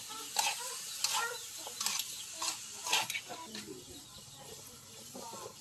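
Stir-frying in a metal wok: a utensil scrapes against the pan in quick strokes about every half second, over the sizzle of frying food. The strokes thin out after about three seconds.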